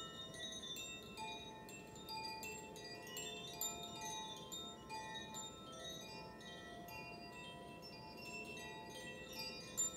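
Metal wind chimes being played, with many light strikes ringing at different high pitches and overlapping into a continuous shimmer.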